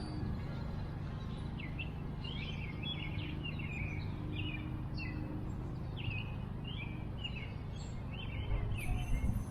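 Small birds chirping and twittering repeatedly over a steady low background rumble.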